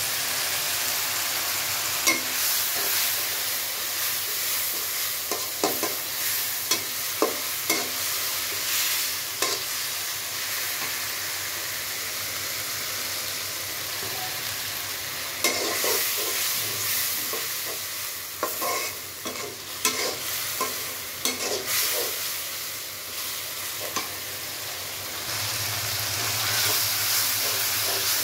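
Onion and spice masala sizzling steadily in oil in a metal karai while a flat metal spatula stirs it, scraping and clicking against the pan, most busily during the first eight seconds and again from about 15 to 22 seconds in. The masala is being sautéed (kosha) until done.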